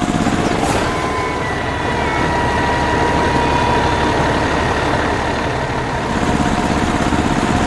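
Heavy vehicle engine running steadily, with a thin steady whine that comes in about a second in.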